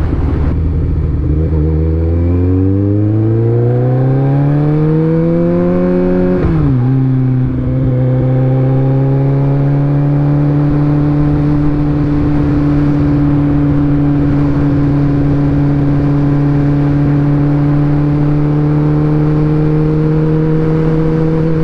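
Kawasaki ZX-14R's inline-four engine through a Two Brothers aftermarket exhaust. It accelerates with a rising pitch for about five seconds, drops sharply on an upshift, then cruises at a nearly steady pitch.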